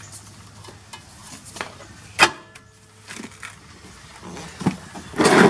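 Light metal clinks and scraping as a new drilled and slotted brake rotor is handled and seated onto the rear wheel hub, with one sharp metallic clink about two seconds in that rings briefly. A louder rustling burst comes near the end.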